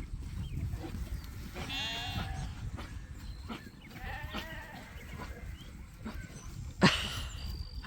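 Lambs bleating: one long call about two seconds in and fainter calls about four seconds in. A single sharp knock near the end is the loudest sound.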